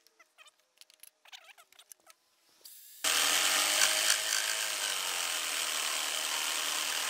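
Faint handling clicks, then about three seconds in an electric jigsaw switches on and runs steadily, cutting through a wooden gunwale strip.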